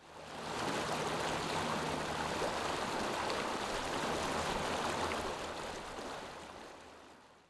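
Whitewater river rapids rushing: a steady hiss of moving water that fades in over the first second and fades away over the last two seconds.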